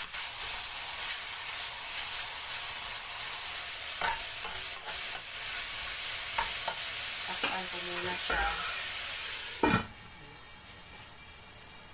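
Sliced pork sizzling in a hot steel wok, stirred with a metal ladle that scrapes and clicks against the pan. Near the end there is a metal clank as the lid goes on the wok, and the sizzle becomes muffled and quieter.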